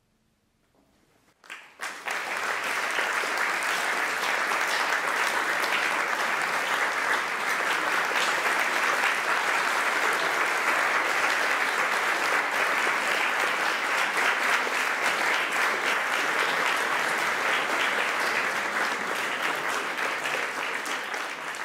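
Audience applauding: after a brief near silence, applause breaks out suddenly about a second and a half in and continues steadily, thinning slightly near the end.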